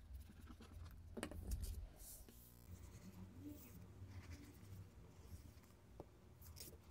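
Faint rubbing and scraping of a glue stick along paper edges, with soft rustles and taps as the glued paper flaps are folded over and pressed down onto card.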